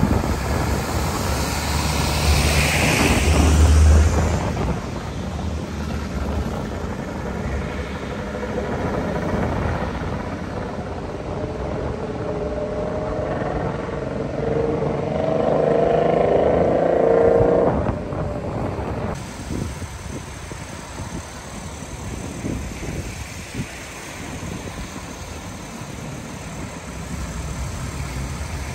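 Road traffic on a wet street: engines and a steady hiss of tyres on the wet road. A vehicle passes close about three to four seconds in, and a little past halfway another engine note rises slightly in pitch, then drops away.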